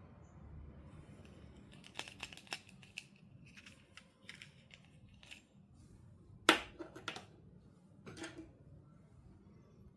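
Doll packaging being opened and handled: a run of sharp plastic clicks, snips and crinkles, the loudest a single sharp click about six and a half seconds in.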